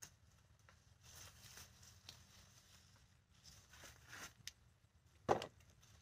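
Faint rustling of sweet pepper plant leaves and stems being handled, with one short knock about five seconds in.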